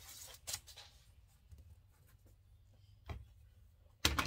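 Quiet handling noises as a ruler and fabric are shifted on a plastic cutting mat: soft scrapes and a light tap, then a short, loud knock near the end as a rotary cutter is moved on the mat.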